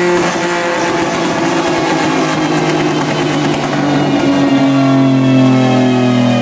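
Engine of a turbocharged Nissan Maxima with a VQ35 V6, held at steady revs and then settling to lower steady revs about four to five seconds in.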